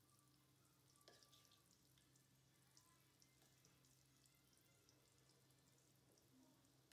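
Very faint crackling sizzle of egg pitha pieces deep-frying in oil, with a light click about a second in, over a low steady hum.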